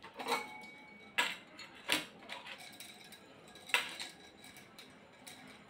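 Metal pressure-cooker lid and parts knocking and clinking as they are picked up and handled: a few separate sharp knocks, one leaving a short ringing tone.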